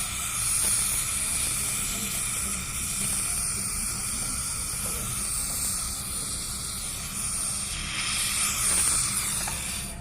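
Steady hiss of pressurized gas escaping, strongest in the high treble, that cuts off suddenly at the end.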